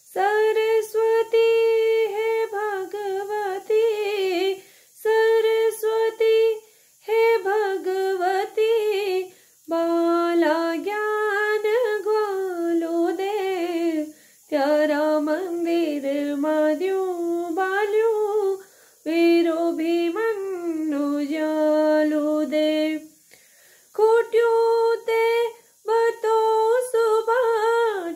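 A woman singing a Pahari devotional song unaccompanied, in long held, ornamented phrases with short breaths between them.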